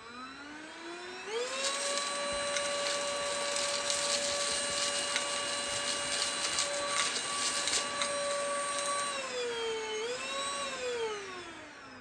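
Prettycare W200 cordless stick vacuum's motor spinning up to a steady high whine, with scattered clicks of small aquarium rocks striking the nozzle and wand. It cannot lift the rocks from the carpet. Near the end the motor winds down, rises briefly once more and spins down to a stop.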